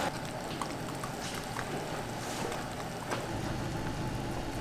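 An ostrich egg frying in oil in a pan: a steady, quiet sizzle with a few faint pops.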